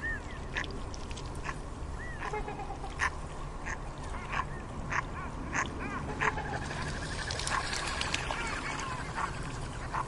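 African penguins calling: many short calls in quick succession over a steady low rumble.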